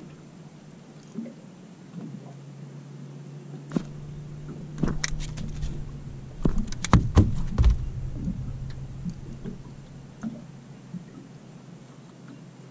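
Handling noises as a hooked tailor is unhooked with long-nosed fishing pliers: scattered knocks and clicks of the fish and metal pliers against the deck mat, loudest in a cluster about two-thirds of the way through. A low steady hum runs underneath.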